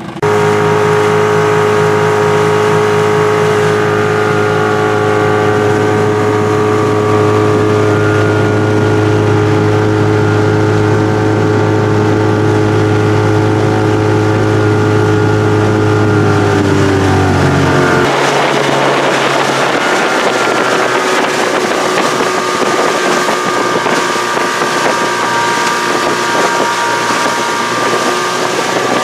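Outboard motor running steadily as the boat moves along. About two-thirds of the way through, the engine note drops and a broad rush of wind and water becomes the main sound.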